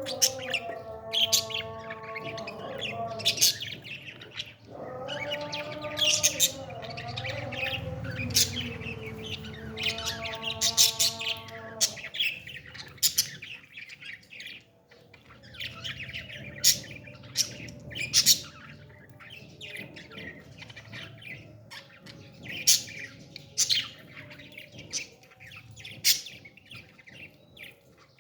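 Parrots chirping: many short, sharp chirps spread through the whole stretch. For roughly the first twelve seconds a steady pitched drone that shifts between notes runs underneath, then stops.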